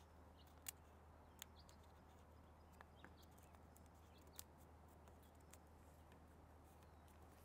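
Near silence: a steady low hum, with a few faint sharp ticks of paper being folded and creased by hand.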